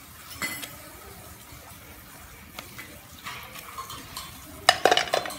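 Non-stick frying pan being shaken back and forth on a gas stove's metal pan stand, scrambled egg sliding inside it. There are a few light clicks, some scraping, and a cluster of knocks and clatter near the end.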